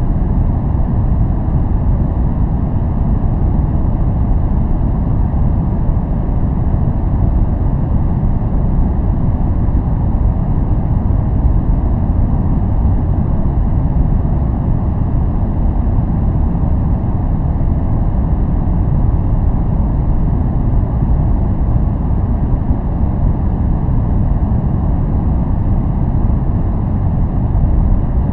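Steady, unchanging noise track of the kind sold for focus and sleep, heavy in the low end: a deep, even rumble with little hiss.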